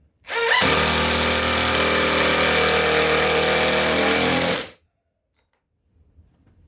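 Cordless drill winding up quickly and running steadily for about four seconds at one pitch, then stopping suddenly.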